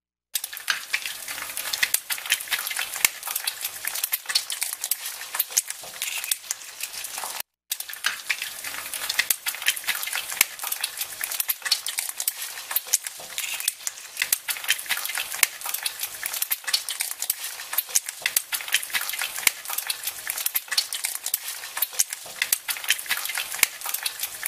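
Dense, continuous crackling noise made of many tiny rapid clicks, like static or sizzling. It cuts out for a moment about seven and a half seconds in, then carries on.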